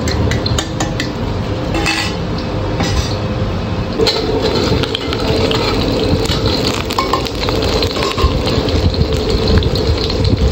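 Egg frying in deep hot oil in a steel wok, a steady sizzle throughout, with a steel cup and a ladle clinking and scraping against the wok.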